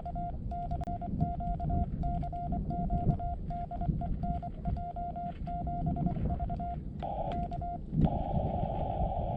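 Morse code (CW) from a portable ham radio: a single-pitch beep keyed on and off in dits and dahs. About eight seconds in the keying stops and a band of hiss at the same pitch takes over.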